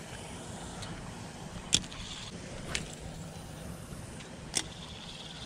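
A few sharp clicks from a spinning rod and reel being worked just after a cast, the loudest about a second and a half in and two more about a second apart, over a steady low rumble.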